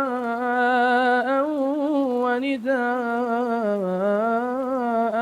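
A male voice reciting the Quran in melodic tajwid, drawing out the word "du'a'an" over several seconds in a long held, ornamented vowel whose pitch wavers and dips low about four seconds in.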